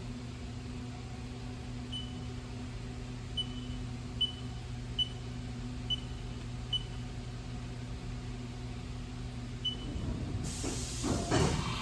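Haas UMC-750 five-axis CNC machining center running with a steady hum, its control giving about seven short high electronic beeps at irregular intervals. Near the end a loud hiss of air starts.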